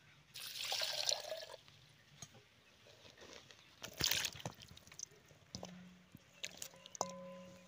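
Water poured into a steel pot over a lump of tamarind to soak it, about a second in, then hands splashing and rinsing shallots, tomatoes and green chillies in a steel basin of water. A faint steady hum comes in near the end.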